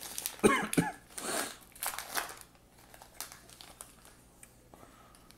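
Plastic wrapper of a baseball card pack tearing open and crinkling for about two and a half seconds, loudest near the start, then only faint clicks of cards being handled.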